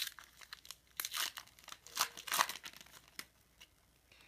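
Foil trading-card pack wrapper being torn open and crinkled, in a few crackly bursts with small clicks between them, the loudest about a second and two seconds in.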